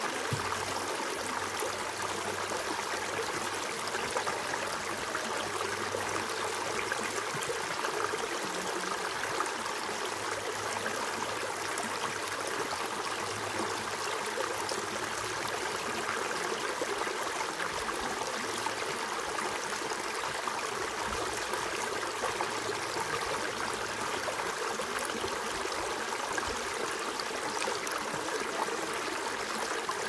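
Shallow rocky creek running steadily, water splashing and gurgling over stones down a small step.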